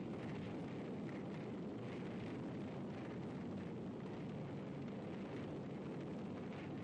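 A large blaze of flames burning with a steady rushing noise, with no separate blasts.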